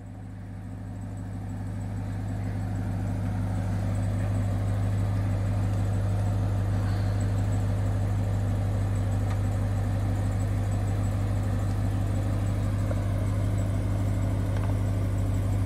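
Vehicle engine running steadily at low revs, a deep even drone that rises in level over the first few seconds and then holds.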